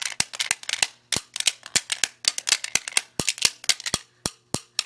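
Drumstick rapidly striking a broken iPod touch: a fast, uneven run of sharp clicking hits, about six a second.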